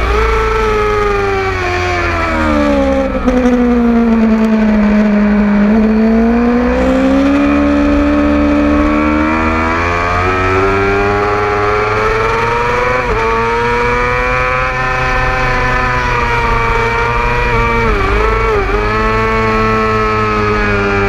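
600cc race motorcycle engine at racing speed, heard onboard with heavy wind rush. The revs fall steadily for about five seconds, climb again, step up sharply about ten seconds in, then dip and waver again near the end.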